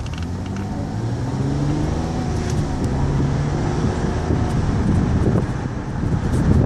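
Car engine speeding up, its hum rising in pitch and getting louder over the first few seconds, over steady road noise.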